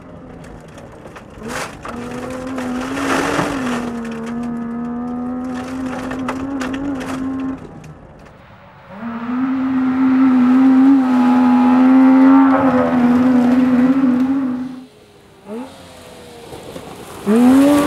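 Saab 96's 850cc three-cylinder two-stroke engine running hard at high, fairly steady revs. It drops away twice, about halfway and near the end, before coming back on. Gravel crackles under the tyres.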